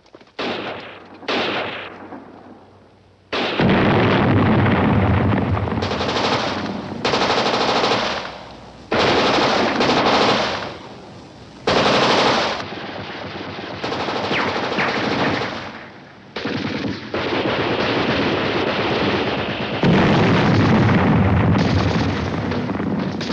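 Machine-gun fire in a film battle soundtrack: two short bursts near the start, then long bursts of rapid automatic fire lasting several seconds each, with brief lulls between them.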